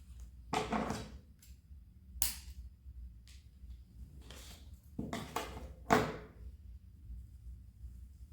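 A few short knocks and clattering handling sounds, four or five in all, the sharpest about six seconds in, over a low steady room hum.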